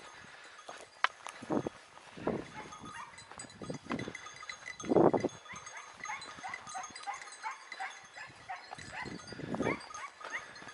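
Animals calling several times, the loudest call about five seconds in, over a scatter of short high chirps.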